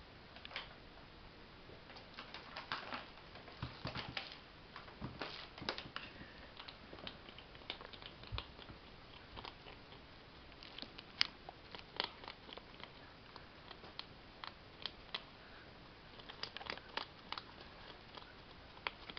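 A hedgehog with its head inside a cat food bag, rustling the bag and crunching the food: irregular sharp clicks and crinkles, bunched several to a second at times.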